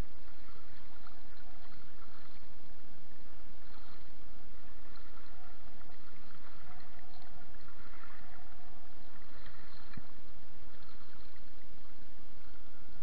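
Steady rumble of wind and choppy water slapping against the side of an inflatable boat.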